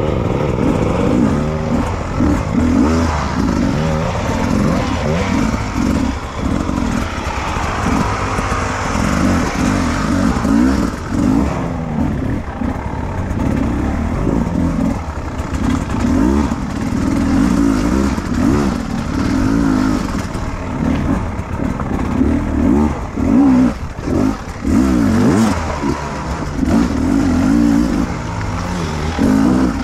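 Beta 300 RR single-cylinder two-stroke enduro motorcycle engine being ridden, revving up and falling back again and again with short gaps between throttle bursts.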